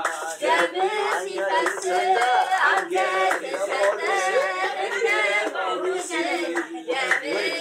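Several voices singing together, with hand claps.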